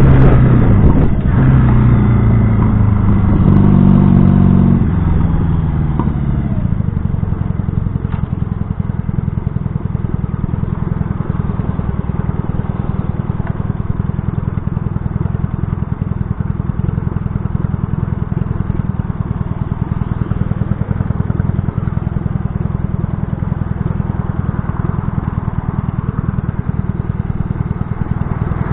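1970 Honda CB175's parallel-twin engine slowing down, its pitch falling in steps over the first five seconds, then idling steadily at a stop.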